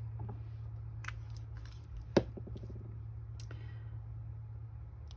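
Small paper pennant pieces being handled and pressed onto a card, with a few light clicks and one sharp tap about two seconds in, over a steady low hum.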